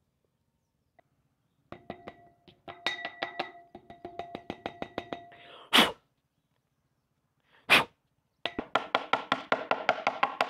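Brush cutter's pleated paper air filter being knocked repeatedly against a wooden table to shake the dust out, in quick runs of ringing knocks about four or five a second. Two sharp puffs of breath are blown through it between the runs.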